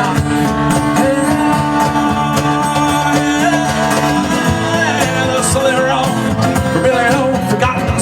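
Live band playing a song, a stretch without lead-vocal lines between sung verses.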